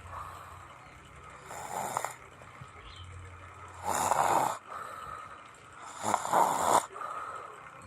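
A person snoring in sleep: three rasping snores about two seconds apart, with faint breathing between them.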